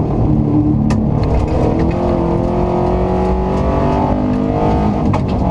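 Subaru Impreza rally car's flat-four engine pulling hard at speed on a gravel road, heard from inside the cabin, its pitch slowly climbing. Scattered sharp ticks of gravel strike the car.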